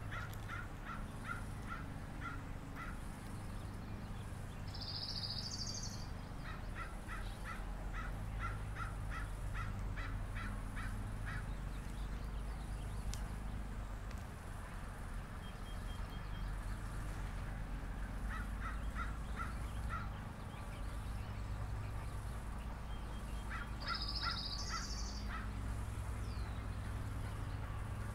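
Spring park ambience: animal calls repeat in runs of short evenly spaced notes, about two a second. A brief higher-pitched bird call comes twice, and a steady low rumble runs underneath.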